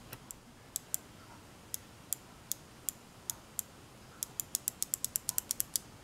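Light, sharp clicks of an opened microwave-oven door microswitch, its snap-action spring contact being pressed and released by hand: a few spaced clicks, then a quick run of about six a second near the end.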